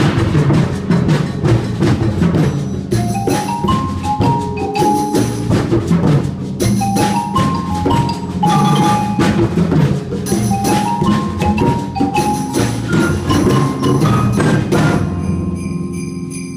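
Percussion ensemble playing: drums keep a steady, busy beat under marimbas playing repeated rising and falling runs. About fifteen seconds in the piece stops, leaving a high metallic ringing that fades away.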